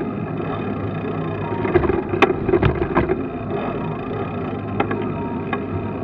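Bicycle riding along a paved street: steady road and wind rumble, with a cluster of sharp clicks and knocks about two to three seconds in and a few more near the end.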